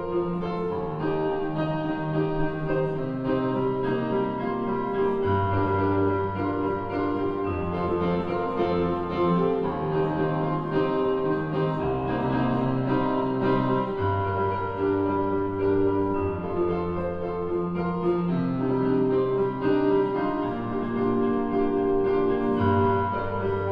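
Instrumental background music led by piano, in slow sustained chords whose bass note changes about every two seconds.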